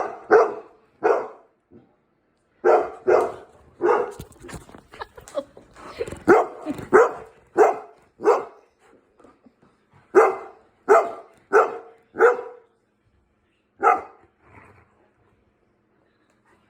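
Bernese mountain dog barking, about twenty short deep barks in clusters of three to five, falling silent near the end.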